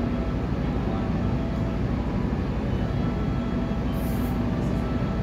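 A steady low mechanical hum with a constant drone, like an engine or machinery running nearby, holding an even level throughout.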